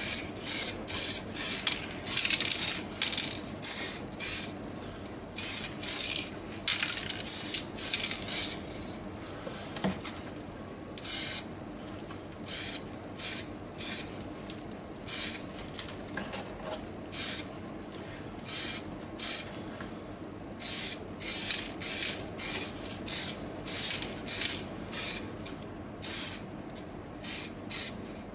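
Aerosol can of chrome spray paint hissing in many short bursts, with a gap of a couple of seconds about ten seconds in.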